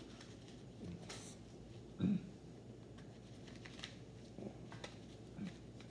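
Faint, scattered clicks and taps of Uno playing cards being handled and laid on a plastic-covered table, with one short, louder thump about two seconds in.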